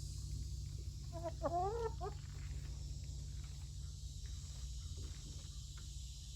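A hen clucking: a quick run of five or six short calls, each rising in pitch, about a second in, over a steady low hum.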